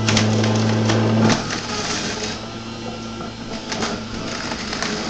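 Breville centrifugal juicer running with a steady motor hum. About a second in, carrots are pushed down the feed chute, and the hum gives way to a rough grinding with scattered clicks as the spinning blade shreds them.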